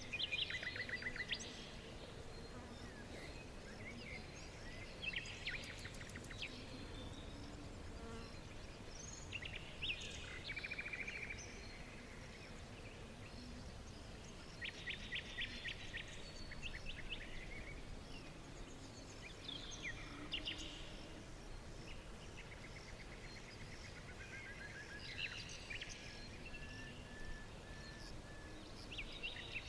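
Several songbirds singing and calling: short chirps and rapid trills come every few seconds, over a steady low background noise.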